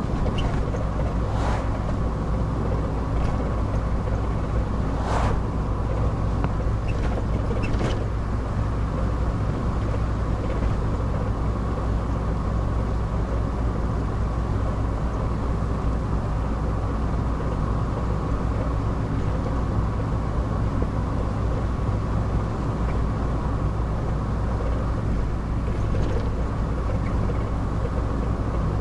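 Car driving at a steady speed, heard from inside the cabin: a steady low engine and road drone, with three brief knocks in the first eight seconds.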